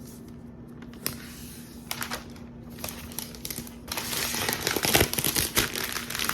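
Packaging wrap being peeled off a laptop and crinkling: a few scattered crackles at first, then a dense burst of crinkling for the last couple of seconds.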